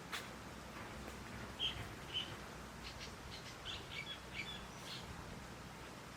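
A wild bird calling: two short calls about half a second apart, then a quick run of short chirping notes, over a faint steady background hiss.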